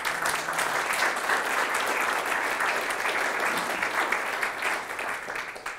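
Applause from an audience: many hands clapping steadily, dying away near the end.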